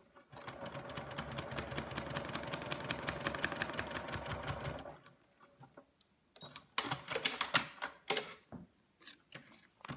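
Electric domestic sewing machine stitching a seam through fabric and foundation paper: a fast, even run of needle strokes for about five seconds that stops abruptly. A handful of separate sharp clicks follow.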